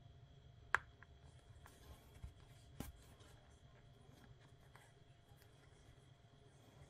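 Faint handling sounds of yarn and a sewing needle being worked through a stuffed crocheted toy: soft rustling and a few light clicks, the clearest about a second and nearly three seconds in, over a low steady room hum.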